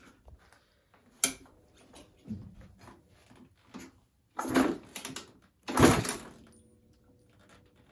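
Suzuki RM125 two-stroke dirt bike being kick-started: a click, then a couple of hard kicks about a second apart, and the engine does not catch.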